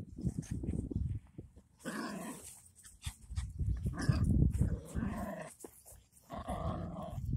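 A dog vocalising in four short calls of about half a second each, with a low rumble of wind and handling noise on the phone's microphone throughout.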